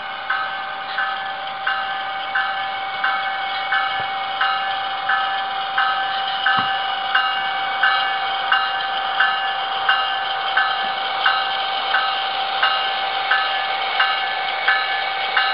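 Sound-equipped HO-scale Amtrak Siemens Charger SC-44 model locomotive ringing its bell steadily, about one and a half strikes a second, over a steady hum while it moves slowly through the yard.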